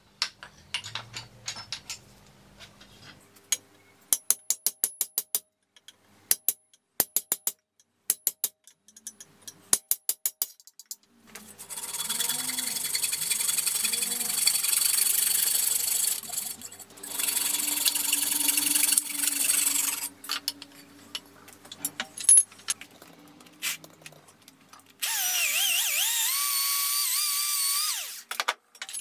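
Corded electric drill boring out the old wooden handle stub from a hatchet head's eye, in several runs, its motor pitch sagging and wavering under load in the last one. Before the drilling, a string of sharp taps and clicks.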